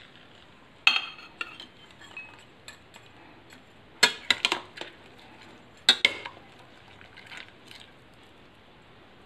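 Metal ladle clinking against the side of a stainless steel pot while stirring a shrimp soup. The clinks ring briefly and come in groups: one about a second in, a quick run of several around four seconds, two more around six seconds, then a few fainter taps.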